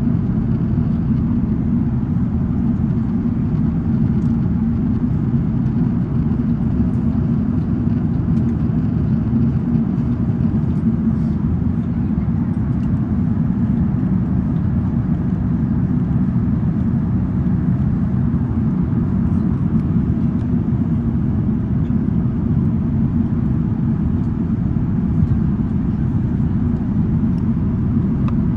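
Steady low rumble of engine and airflow noise heard inside the passenger cabin of an Airbus A380-861, with a faint hiss above it.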